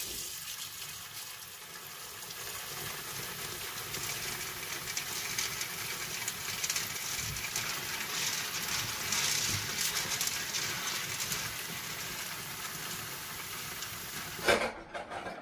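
Kitchen tap running in a steady stream into a stainless steel bowl of dried soybeans, filling it with water for soaking. The running water cuts off near the end.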